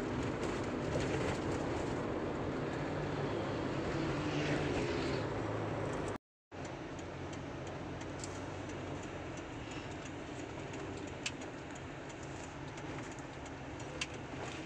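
Steady engine and road noise from a moving car, cut off abruptly about six seconds in. After the cut comes quieter outdoor traffic hum with birds cooing and a couple of sharp ticks near the end.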